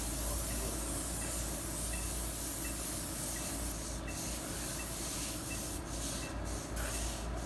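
Paint spray gun hissing steadily as it coats the siding, then cutting in and out repeatedly in the second half as the trigger is worked, with a faint regular tick about every two-thirds of a second. Under it, a paint roller rubs along the wall.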